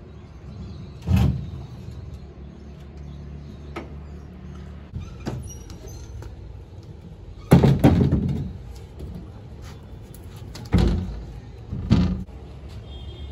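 Knocks and thumps of plywood panels being handled and set against a painted iron sofa frame: one knock about a second in, a louder cluster of thumps about halfway through, and two more knocks near the end.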